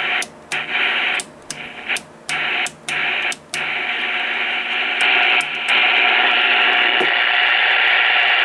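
Static hiss from a Pace 1000-B CB radio's speaker, which cuts out and comes back with a click about five times in the first few seconds, then runs steadily.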